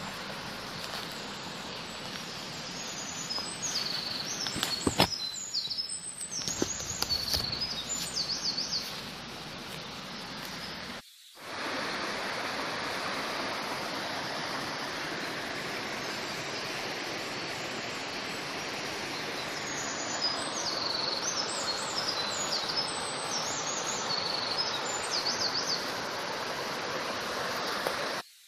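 Small birds chirping in bursts over the steady rush of a forest creek and small waterfall. Near the start come a couple of sharp knocks.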